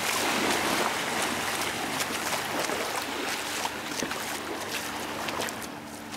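Small waves washing and lapping at a shallow, muddy shoreline, a steady rushing wash that eases a little near the end.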